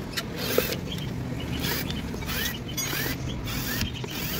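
Cordless drill-driver running in short start-stop bursts, backing screws out of a plastic toy steering housing.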